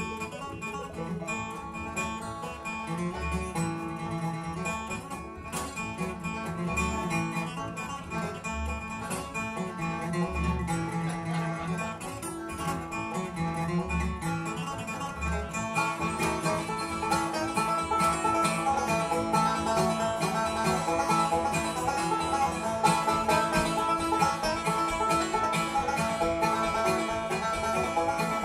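Live acoustic bluegrass band playing an instrumental passage: acoustic guitar and five-string banjo over upright bass. The playing gets fuller and a little louder about halfway through.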